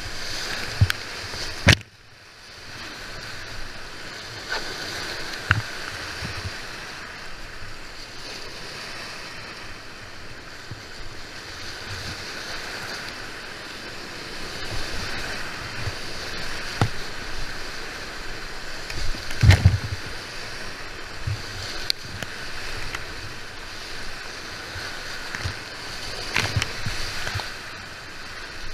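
Whitewater rapids rushing and splashing around a kayak, heard close up. Several sharp knocks and thumps break through the rush, the loudest a cluster about two-thirds of the way through.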